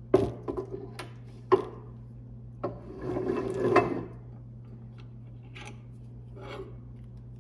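Several sharp metal clicks and knocks over the first second and a half as the ratcheting arbor press's ram is lifted off a leather setting tool, then about a second of scraping as the setter and leather are handled on the press's steel base, with a couple of faint clicks near the end.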